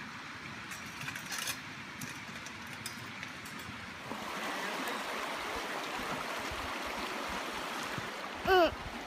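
Steady rushing of a small river, growing louder about four seconds in. Near the end comes a brief high voice with falling pitch, the loudest sound.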